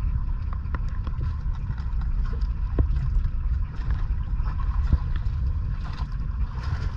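Steady low rumble of wind on the microphone aboard a small outrigger boat, with scattered light clicks and knocks as a caught fish and its nylon line are handled.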